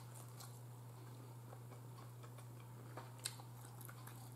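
Quiet chewing of a chicken wing: a few faint, irregular mouth clicks and smacks over a steady low hum.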